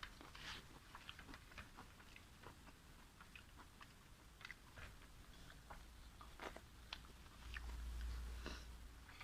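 Close-miked eating sounds, faint: chewing with many small wet mouth clicks. A low rumble swells briefly near the end.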